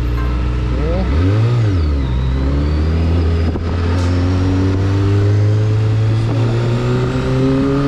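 Kawasaki Ninja sport bike engine running at low speed, with a quick rev that rises and falls about a second and a half in, then its pitch climbing slowly as the bike gently speeds up.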